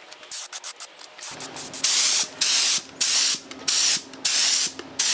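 Air-powered gravity-feed spray gun hissing in repeated bursts of about half a second, pass after pass, spraying sealer onto wooden lamp parts. There are a few short quick blips in the first second, and a steady low hum joins a little over a second in.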